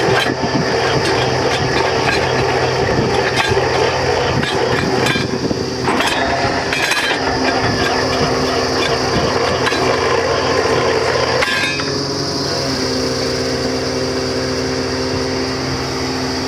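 Truck-mounted borewell drilling rig at work: its engine runs steadily under a dense rattling noise of drilling with the rod down in the hole. About twelve seconds in the rattle stops and the engine keeps running, its note shifting slightly soon after.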